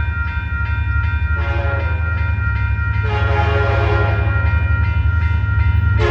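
Union Pacific SD59MX diesel locomotive's air horn sounding a salute: two chords of about a second and a half each, back to back, with a third starting near the end, over the locomotive's steady deep engine rumble. A grade-crossing warning bell rings throughout at about three strikes a second.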